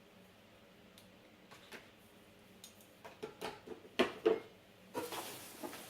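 Handling noises from products and packaging: scattered light clicks and crinkling, with two louder knocks about four seconds in.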